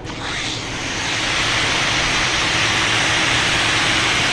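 Fire hose nozzle spraying a stream of charged water: a loud, steady rushing hiss that starts at once and builds over the first second as the nozzle opens.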